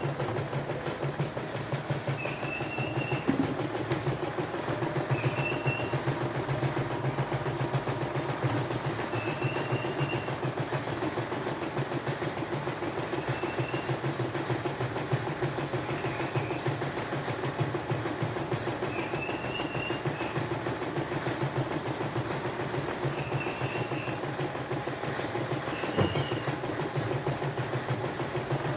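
CNY E960 portable embroidery machine stitching a design: a steady, fast needle rattle over a low motor hum. Short high chirps recur every couple of seconds, and there is one sharp click near the end.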